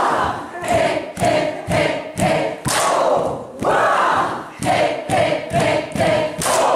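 A group of women's voices chanting together in time with a steady beat about twice a second, with a loud rising group shout about halfway through.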